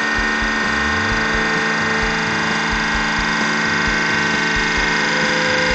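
Hydraulic press running under load as its ram slowly squashes a gold bar: a steady whine and hum with a low pulse about four times a second.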